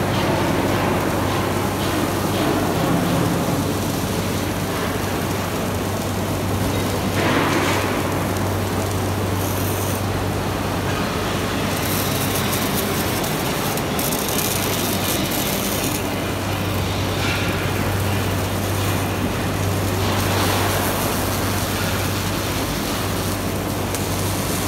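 Robotic gas-shielded arc welders at work: a steady hiss of the welding arcs over a constant low hum.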